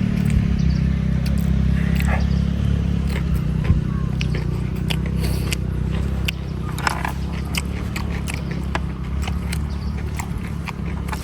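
A person chewing and biting pork close to the microphone, with many short wet clicks and smacks, over a steady low rumble.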